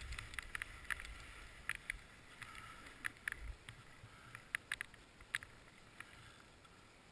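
Skis sliding and scraping over chopped-up snow, with wind rumbling on the microphone; both fade as the skier slows. Scattered sharp clicks and taps sound throughout.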